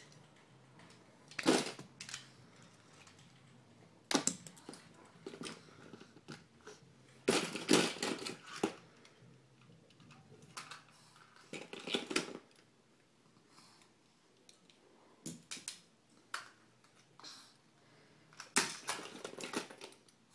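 Small toy cars clattering and clicking against each other and a plastic bin as they are picked up and handled, in short bursts of knocks every few seconds with quiet in between.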